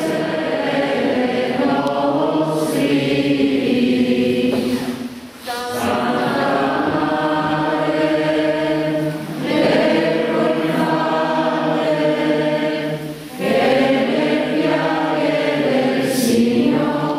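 A congregation singing a hymn together in long, held phrases, with a short break for breath about every four seconds.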